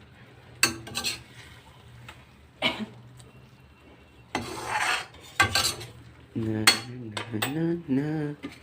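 Metal cooking utensils and pans clinking and scraping, with several sharp clinks in the first half. A short voice sound comes near the end.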